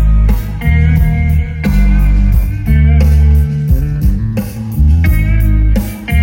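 Blues-rock music with electric guitar and a heavy, deep bass line, played loud through a line-array PA system with subwoofers during a sound check.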